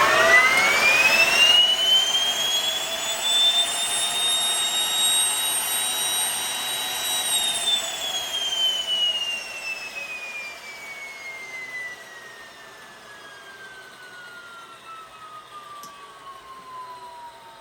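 T62-32A small gas turbine engine spooling up on its electric starter. A high whine climbs quickly in pitch over the first few seconds and holds steady. About seven seconds in it starts to fall in a long, even glide as the engine winds down.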